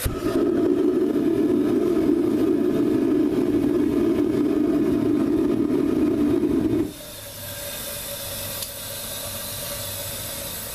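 Propane-fired foundry burner lighting off suddenly and running with a loud steady roar for about seven seconds, then going out abruptly; gas keeps hissing from the unlit burner afterwards. The unstable flame comes from running the propane at unregulated pressure.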